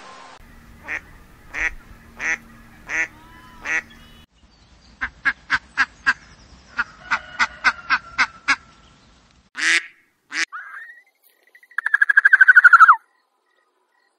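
A mallard hen quacking in quick runs of short quacks. Before it come five evenly spaced calls, and near the end a loud, harsh call falling in pitch, the loudest sound here.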